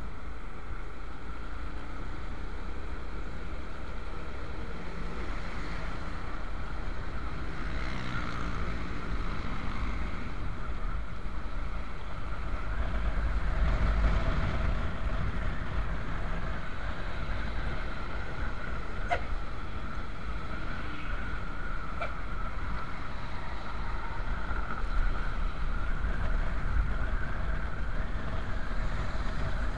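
Wind rushing over the microphone of a moving motorcycle, with the engine and road noise running underneath.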